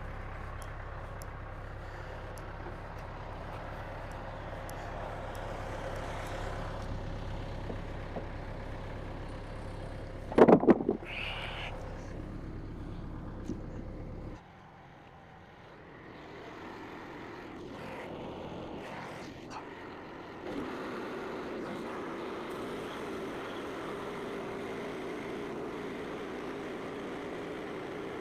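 An engine running steadily, with a single loud knock about ten seconds in. The engine sound cuts off abruptly a few seconds later, and a different, steady running sound starts near the end.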